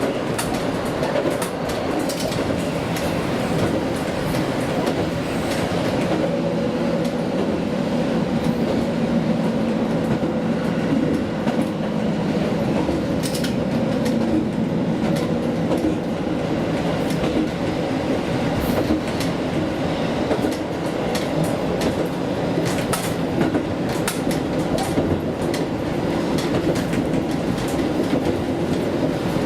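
Diesel railcar running along the line: the steady drone of its engine and wheels, with irregular clicks as the wheels pass over rail joints.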